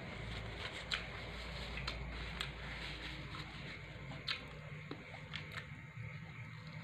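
Scattered sharp clicks and crackles of a pizza slice being handled and bitten into, over a low steady hum that drops away about halfway through.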